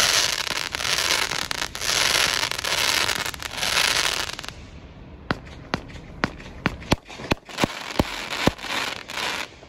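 A consumer aerial firework cake firing: about four and a half seconds of hissing, crackling comet tails in three swells, then about nine sharp bangs, roughly two a second, as shots burst overhead.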